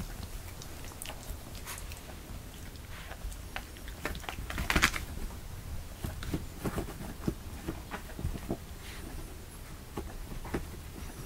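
Pets moving about: scattered small taps, scuffs and rustles of paws and claws on a cork floor and on a fabric pet bed, with one louder scraping rustle about halfway through.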